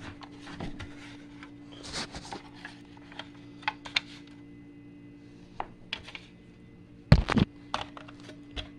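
Plastic smoke alarms being handled and turned over: scattered light clicks and scrapes, with a louder knock about seven seconds in. A steady low hum runs underneath.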